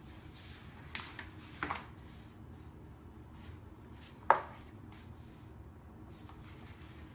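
Handling noises from working a vinyl wrap onto a mini fridge: a couple of soft rustles and taps, then one sharp tap about four seconds in.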